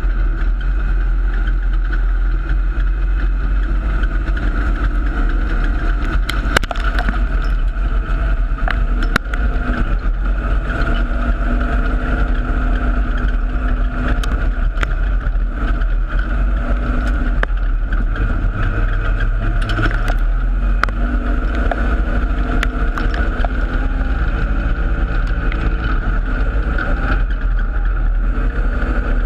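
Holden Torana dirt-track open sedan racing, its engine heard from inside the cockpit, the pitch rising and falling as the driver goes on and off the throttle. A few sharp knocks cut through, about six and nine seconds in.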